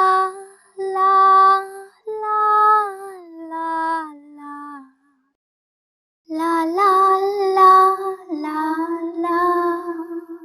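A creepy little girl's voice singing a slow, wordless tune. Two phrases of held notes are separated by about a second of silence, and the first phrase falls in pitch at its end.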